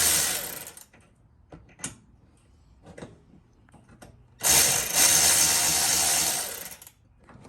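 A tool running the bolts of a Milwaukee Packout mount into place. The first burst stops just under a second in, there are a few small clicks and knocks, and then a steady burst of about two and a half seconds follows.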